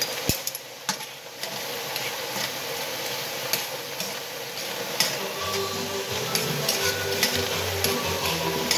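Food cooking in steaming pots on a stovetop, a steady sizzling hiss with scattered small pops. Soft background music comes in about halfway through.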